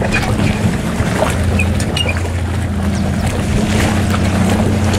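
Motorboat engine running slowly in a steady low hum as the boat is eased onto its trailer, with water and wind noise around it.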